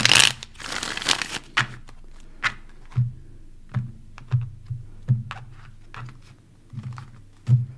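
A deck of tarot cards being riffle-shuffled and bridged, followed by a string of short taps as cards are dealt one at a time onto a cloth-covered table.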